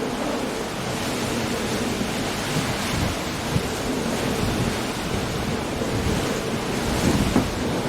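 Coastal storm: a steady rush of wind, rain and surf against rocky cliffs, with brief thumps about three and a half seconds in and again near the end.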